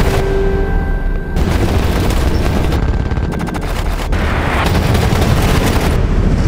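Roller coaster train running at speed on its steel track: a loud, dense low rumble with rapid clattering, including a fast run of clicks about three seconds in. A film score plays underneath.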